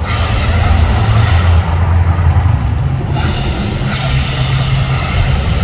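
Mirage artificial volcano's eruption effects: a loud, steady deep rumble with a rushing hiss over it, from the show's gas fire jets and sound system.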